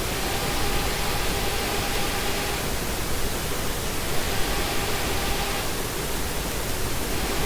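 Steady hiss with a faint electric buzz underneath that cuts out and comes back twice: a PWM-driven fischertechnik motor held stalled, its propeller not turning while the pulse signal still reaches it.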